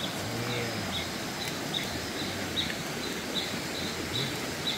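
Jungle ambience: a steady outdoor hiss with a short, high chirp repeating about two to three times a second.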